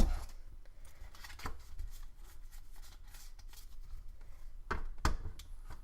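Pokémon trading cards being handled and flipped through in the hand: soft slides and rustles with a few sharp clicks, the loudest right at the start and two more near the end.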